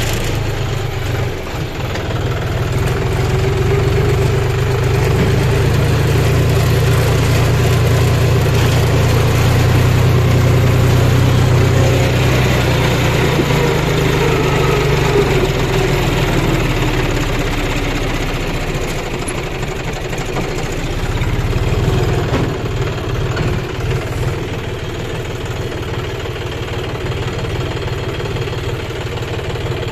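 John Deere 5039D tractor's three-cylinder diesel engine running as the tractor is driven over rough ground. The engine is working harder and louder in the first half, then eases off with a brief swell near the end.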